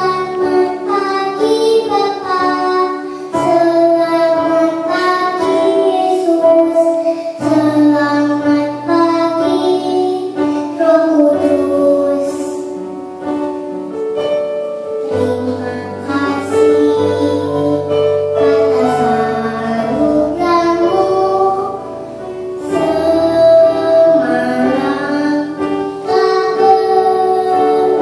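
A young girl singing a children's hymn into a handheld microphone, her voice amplified, over held keyboard chords that change every few seconds.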